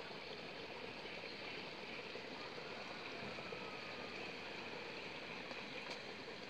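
Steady outdoor ambient noise, an even hiss with no distinct events.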